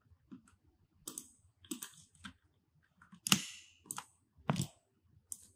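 Irregular clicks and taps from a computer keyboard and mouse as a drawing program is worked, the loudest about three and a half seconds in.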